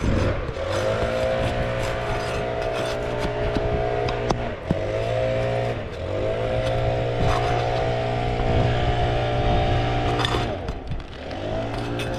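A motor running steadily with a pitch that sags and comes back up about four times, as if briefly loaded, with scattered sharp clicks and scrapes over it.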